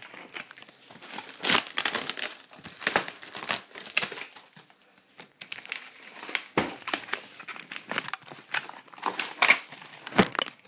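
Plastic packaging wrap being pulled off and crinkled by hand: irregular crackling and rustling, with a short lull about halfway through.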